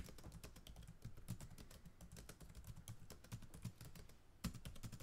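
Faint, rapid clicking of computer keyboard keys being typed, a typing sound that goes with the title text typing itself out. A louder cluster of keystrokes comes about four and a half seconds in.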